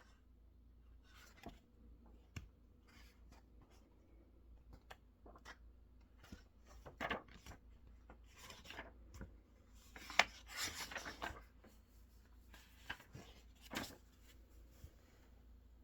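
Faint handwriting on paper: irregular scratching strokes of a pen or pencil with a few light taps, busiest in the middle stretch.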